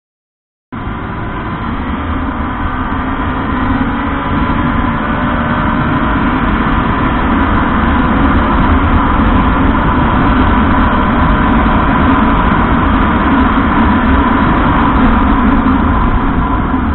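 Honda RS150R's single-cylinder engine running as the motorcycle is ridden, its pitch climbing slowly. It cuts in suddenly under a second in, with a heavy low rumble underneath.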